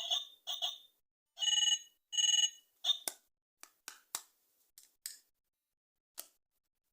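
An electronic toy's sound chip gives a couple of short blips, then two buzzy electronic beeps of about half a second each. A run of sharp plastic clicks follows, growing fainter and more spaced out.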